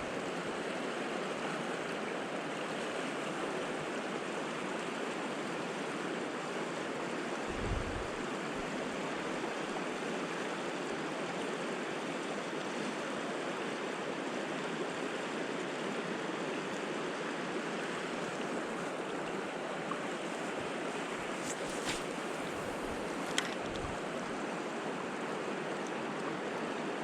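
A high, fast river rushing steadily, with a soft thump about eight seconds in and a few sharp clicks near the end.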